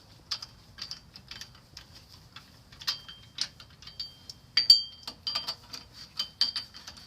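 Hand ratchet wrench clicking in irregular runs while tightening the mounting bolts of a rear wheel hub assembly, some clicks with a short metallic ring; the loudest comes a little past halfway.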